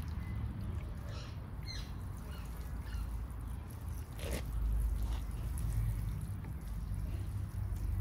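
Water sprinkling from a plastic watering can's rose onto the soil and moss of a bonsai, over a steady low rumble. A few short chirps about a second in.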